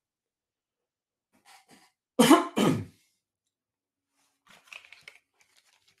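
A man coughs loudly twice in quick succession about two seconds in. Faint rustling and handling noise follows near the end as over-ear headphones are put on.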